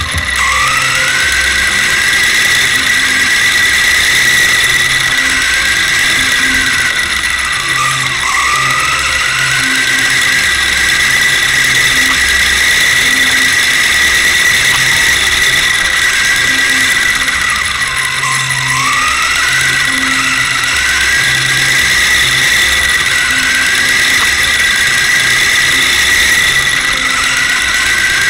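Electric motor and gear drivetrain of a small autonomous RC car whining as it drives, heard from a camera mounted on the car. Over a steady high whine, a second whine dips in pitch and climbs back every few seconds as the car's speed changes.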